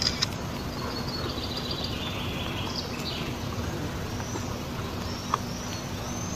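Steady outdoor background rumble with small birds chirping now and then, and two short sharp clicks, one at the start and one about five seconds in.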